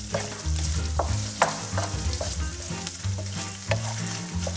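Fusilli and morel mushrooms sizzling in a hot frying pan while a wooden spoon stirs and tosses them, with scraping and several light knocks of the spoon against the pan.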